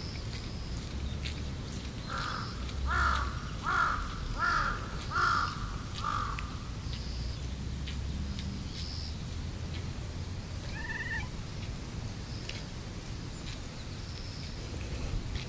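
A crow cawing: about six harsh caws in quick succession, starting about two seconds in. A single short, higher call follows a few seconds later.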